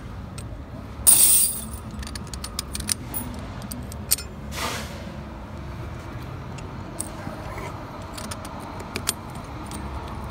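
Steel tire-chain links clinking and rattling as a snow chain on a truck tire is tightened with a bar-type chain tightening tool. There is a loud rattle about a second in, another shorter one past four seconds, and scattered light clinks near the end.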